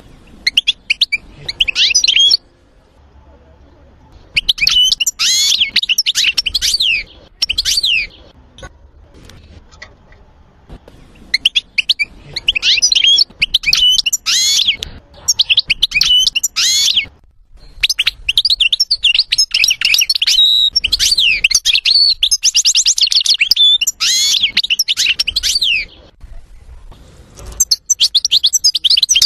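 European goldfinch singing: bouts of rapid, varied twittering and trills a few seconds long, broken by short pauses.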